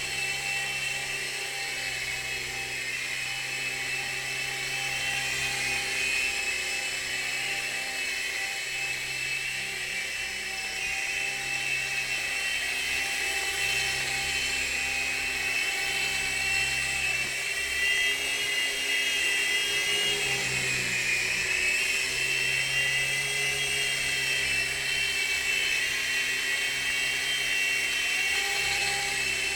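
DFD F103 mini coaxial RC helicopter, its turbines removed, flying: a steady high-pitched whine from its small electric motors and rotors. The pitch shifts a little now and then.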